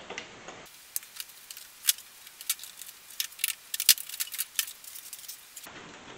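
Light metal clicks and clinks, irregular and about a dozen over five seconds, from pliers working the spring hose clamps on the engine's intake tubing. The sharpest click comes about four seconds in.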